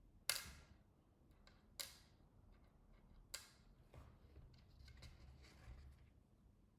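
Three sharp clicks about a second and a half apart, then fainter ticks and light scraping: small screws and a screwdriver handled while a laptop's back-panel screws are driven back in.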